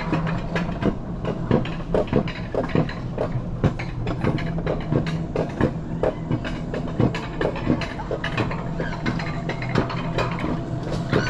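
Alpine coaster sled being hauled up the lift section of its rail track: a steady low hum under constant irregular clacking and rattling from the lift mechanism and the sled's wheels on the rails.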